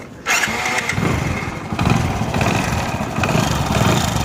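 Single-cylinder Hero commuter motorcycle engine starting and settling into idle, with a metallic jingling rattle from the timing chain. The mechanic puts the rattle down to the worn teeth of the old oil-pump drive gear, which was left in when the new timing chain was fitted.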